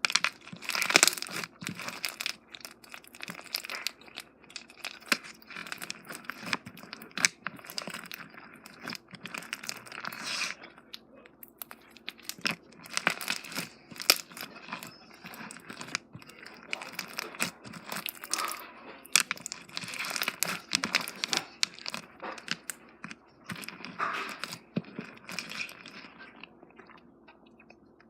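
Slime being squeezed and stretched by hand, giving a run of irregular sticky crackles, clicks and small pops that thins out near the end.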